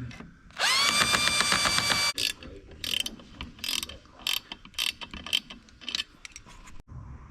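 A handheld power drill whines for about a second and a half, winding up in pitch and then holding steady before it stops abruptly. It is followed by a run of ratchet-wrench clicks in short strokes as the air-horn compressor's mounting bolts are tightened to the bumper.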